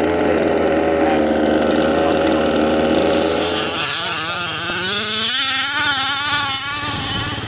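Small two-stroke petrol engines of 1/5-scale RC cars running hard, high-pitched and buzzing. The pitch holds fairly steady for the first few seconds, then the revs swing up and down repeatedly as the throttle is worked in the sand.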